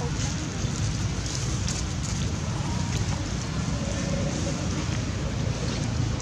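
Steady outdoor background noise, mostly a low wind rumble on the microphone, with faint scattered crackles.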